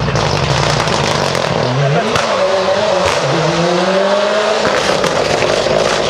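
Ford Escort rally car's turbocharged four-cylinder engine revving hard as it approaches, its pitch rising and falling several times through gear changes and lifts off the throttle, with a few sharp cracks over it.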